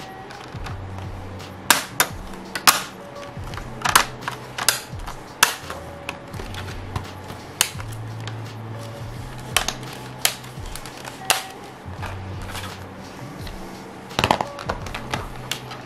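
Sharp plastic clicks and snaps from a rugged tablet case being pressed onto an iPad and handled, coming every second or so with a quick cluster near the end, over quiet background music.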